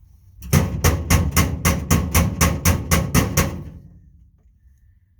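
Hammer blows on the steel of a job-site gang box: about a dozen quick, even strikes at roughly four a second, then they stop.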